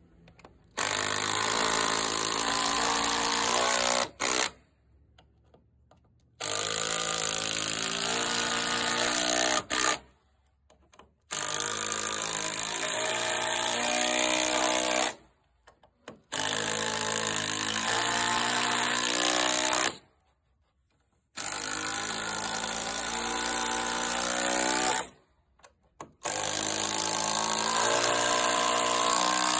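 Makita XGT 40V cordless impact driver driving GRK RSS structural screws into a timber beam: six runs of rapid hammering, each about three and a half seconds, with short pauses between screws.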